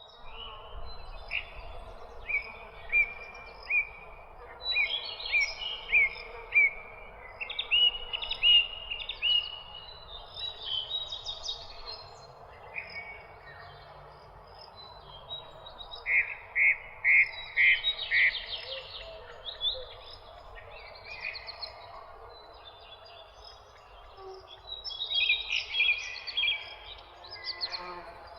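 Several songbirds chirping and singing in overlapping phrases of short, high notes and trills, with a quick run of loud repeated notes about two-thirds of the way through and another busy flurry near the end. A steady hiss of background ambience runs underneath.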